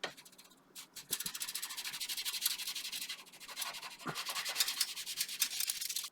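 Anti-bacterial wipe rubbed rapidly back and forth over the PC case to scrub off mould: a fast, dense, scratchy rubbing that starts about a second in, with a couple of light knocks.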